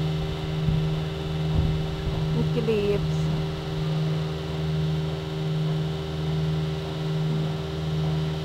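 A steady low hum with a few fainter steady tones above it, and some soft low knocks in the first two seconds.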